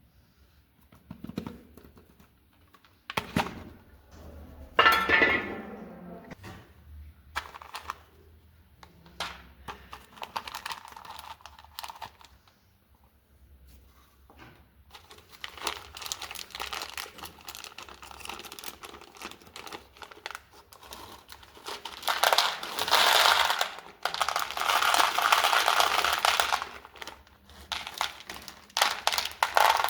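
Plastic packaging crinkling and tearing, hand-handled close to the microphone. It starts with a few separate crackles and knocks, then gives way to long stretches of dense crinkling that grow louder in the second half.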